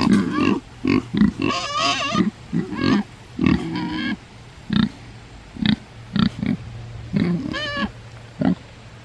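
Hungry kunekune pigs grunting in many short bursts at close range, with a couple of higher, wavering calls: one about two seconds in and one near the end.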